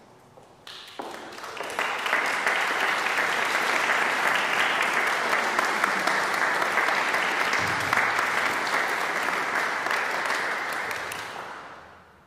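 Audience applauding, starting about a second in, quickly building to a steady level and dying away near the end, as the cellist takes the stage.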